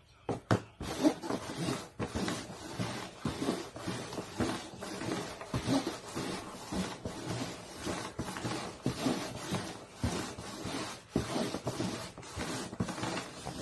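Upturned paper cups slid, scraped and knocked about rapidly on a cardboard box top: a dense, irregular run of light clicks and scraping.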